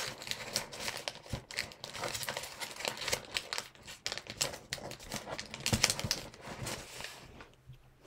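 Origami paper crinkling and rustling in the hands as it is folded and creased, a run of small irregular crackles that dies away near the end.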